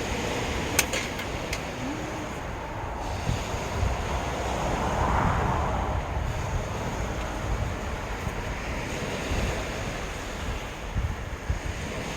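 Sea waves washing onto a beach, with wind buffeting the microphone. A wave surges up, loudest about five seconds in, and there is a sharp click just under a second in.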